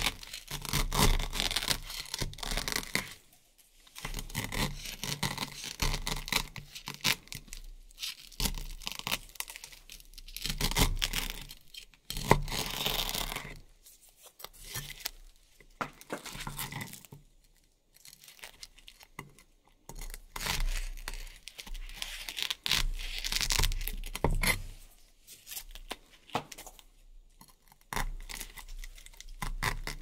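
Velcro hook-and-loop strips ripping and crackling as a knife slices through a stack of them, in repeated bursts of a second or two with short pauses between.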